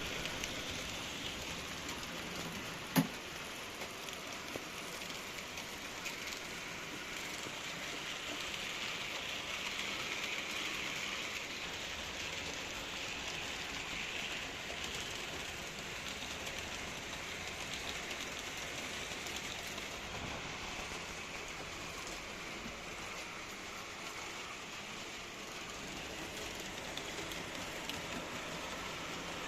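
H0 scale model trains running on a Märklin AC three-rail layout: a steady rolling rattle and hiss of wheels and pickup sliders on the track, with one sharp click about three seconds in.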